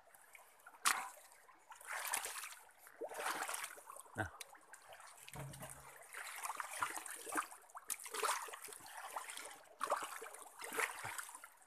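Wet mud and shallow water being worked by hand, with irregular squelches, splashes and trickling water.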